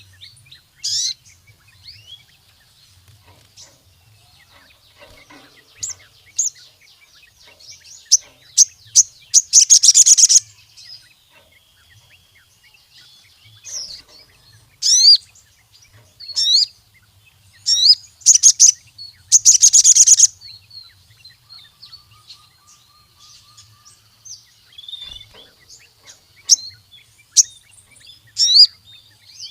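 Crimson sunbird (sogon) singing: high, sharp chirps and short rapid trills, broken by several loud, dense rattling trills, the energetic song keepers call gacor.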